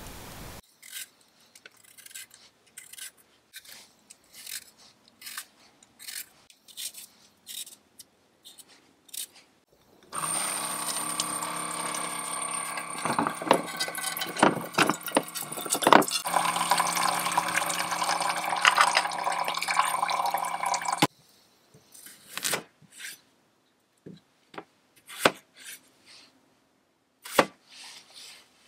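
Scattered light clicks and knocks, then a small electric water dispenser pump pouring a stream of water into an aluminium pot: a steady splashing fill with a thin high tone, which starts about ten seconds in and cuts off suddenly about eleven seconds later. A few more clicks follow.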